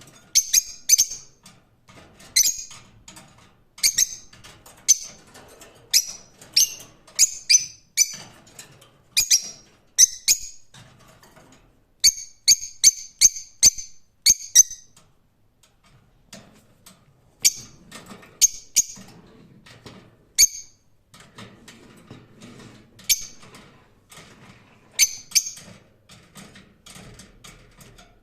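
Lovebirds chirping: short, sharp, high-pitched calls in irregular clusters, with a quick run of calls about halfway through and a quieter stretch after it.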